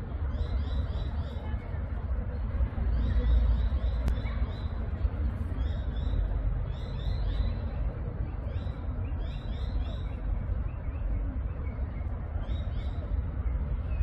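Birds calling in quick runs of three to five short, high, sliding notes, repeated every second or two, over a steady low rumble.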